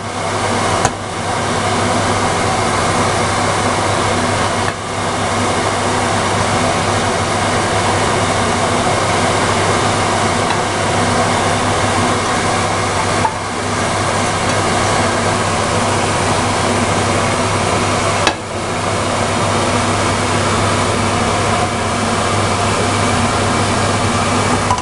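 Steady mechanical noise like a fan running, with a low hum underneath. It drops out briefly four times.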